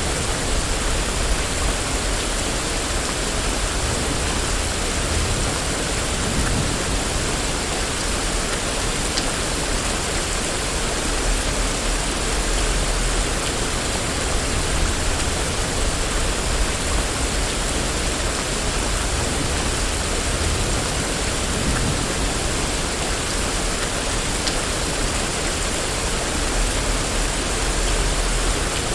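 Steady rain falling on a street, a constant even hiss with a low rumble underneath.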